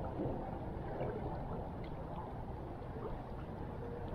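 River water running steadily, a low even rushing.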